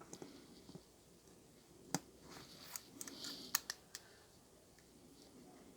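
Faint, scattered clicks and light scraping of a small driver bit on the screws and metal parts of a Kershaw Cryo folding knife as the screws are tightened. The sharpest click comes about two seconds in, and a quick run of three clicks follows about a second and a half later.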